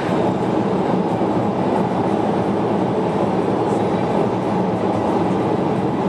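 Steady road noise of a car driving at expressway speed, heard from inside the cabin.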